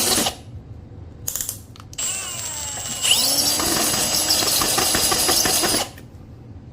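Power drill boring into a ceramic toilet bowl in short runs. It stops just after the start and gives a brief burst, then starts again about two seconds in, runs harder from about three seconds and stops near six seconds.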